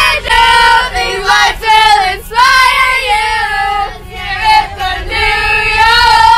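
Group of girls singing loudly together, belting long held high notes with short breaks between phrases, over the low rumble of a school bus.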